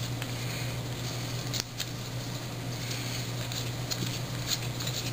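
Topps baseball cards being flicked one after another off a stack by hand: soft, irregular card ticks and slides over a steady low hum.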